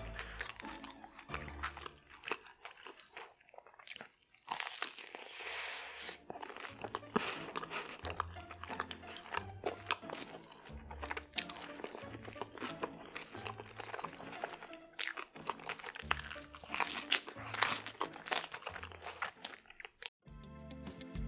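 Close-miked crunchy bites and chewing, many sharp crackles in quick succession, over background music with a steady bass line. The eating stops suddenly near the end, leaving only the music.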